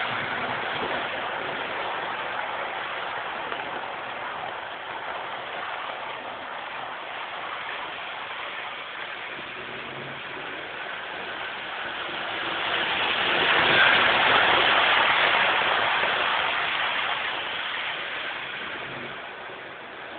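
00 gauge model train running on the track, a steady rushing noise that grows louder about two-thirds of the way through as the train comes close, then fades.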